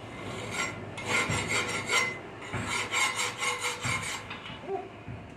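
Hand file rasping across the steel edge of a freshly forged hewing axe head, profiling the edge in quick, uneven strokes that stop about four seconds in.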